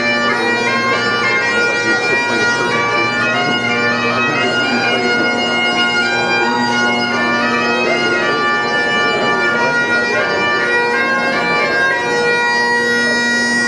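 Bagpipes playing a tune, with the chanter's melody stepping over steady unchanging drones. The music stops at the very end.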